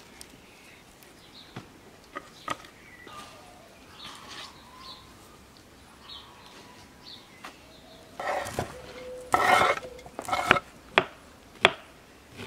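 Soft rustling of fresh dill and greens being sorted, then louder clatter of a large metal pot being handled about eight seconds in. A few sharp taps on a wooden cutting board follow near the end.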